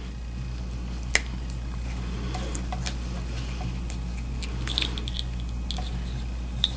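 Small plastic clicks and rustles of a replacement two-prong plug being handled as its housing is slid back over the wired terminals, with one sharper click about a second in, over a steady low hum.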